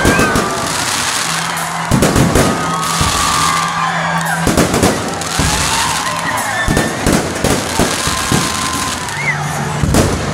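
Aerial fireworks display: a string of sharp bangs from shells bursting overhead, every second or two and sometimes in quick pairs, over a continuous crackling hiss.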